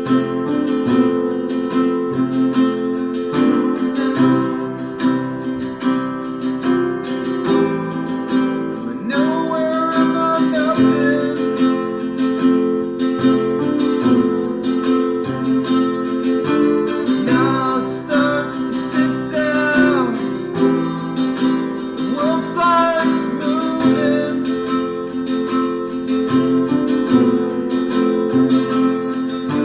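Background music led by guitar, holding steady chords, with a wavering melody line rising over it for stretches.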